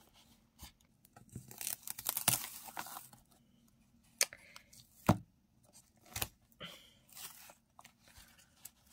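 Laminated cardboard of an eyeshadow palette being torn and peeled off the shadow pans by hand: a rasping tear lasting a couple of seconds, then three sharp clicks and a few short tearing sounds. The plastic coating makes it stubborn to pull off.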